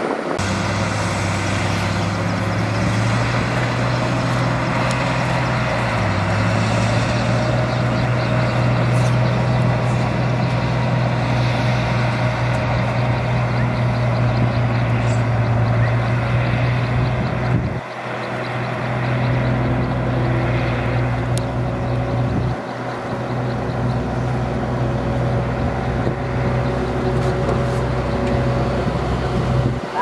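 Heavy road-construction machinery's diesel engines running steadily under work, a deep continuous engine drone. It breaks off briefly twice past the middle.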